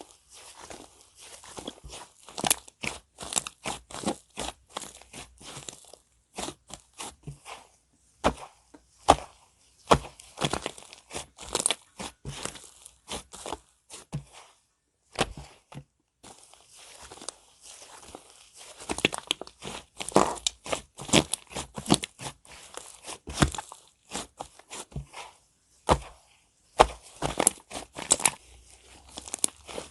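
Clay slime being squished and mixed by hand: dense, irregular crackling and crunching, with a brief pause about halfway.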